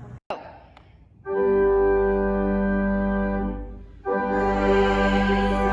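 Church organ playing held chords: one chord comes in about a second in, sustains and dies away, and a second chord starts about four seconds in.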